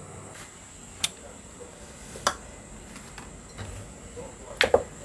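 A few sharp clicks and knocks of a ceramic plate and kitchen items being handled and set down on a kitchen counter, over faint room noise; the last is a quick double knock near the end.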